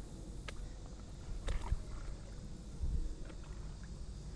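Creek water sloshing and splashing around a person wading, over a steady low rumble, with a few sharper splashes about one and a half and three seconds in.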